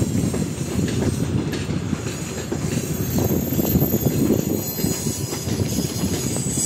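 Passenger coaches rolling slowly over yard track: a steady wheel-on-rail rumble with scattered clicks and clatter as the wheels cross rail joints and switches, and a faint high wheel squeal in the middle.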